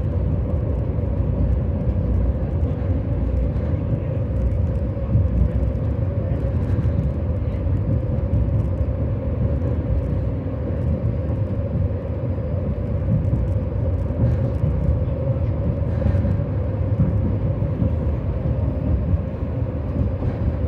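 Tram running along its track, heard from aboard: a steady low rumble of wheels on rails with a steady hum over it and light clicks and rattles now and then.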